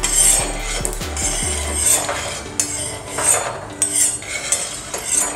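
Metal spatula scraping dry-roasted peanuts across a flat tawa griddle and pushing them into a steel bowl, in repeated short scraping strokes, about two a second, with the peanuts rattling against the metal.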